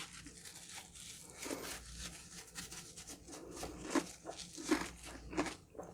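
Close-miked chewing of the crunchy honeycomb candy on a honey crunch cake: a run of small crackling crunches, with a few louder crunches in the second half.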